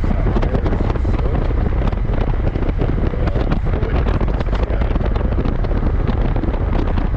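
Heavy wind noise buffeting the microphone: a constant low rumble broken by rapid crackling gusts.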